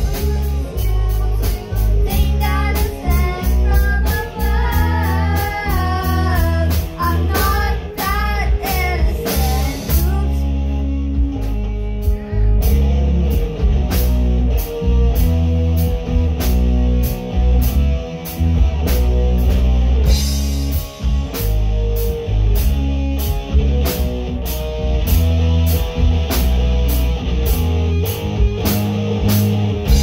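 Live rock band playing: a singer over drum kit and guitar for about the first ten seconds, then the band carries on without vocals, the drums hitting steadily.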